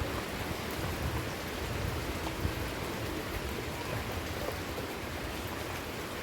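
Steady rain falling: an even hiss with scattered ticks of drops and a low rumble underneath.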